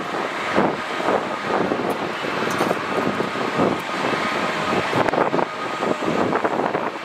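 Distant jet engines of a Boeing 747-400 moving along the runway: a steady wash of engine noise with a faint whine, broken by gusts of wind on the microphone.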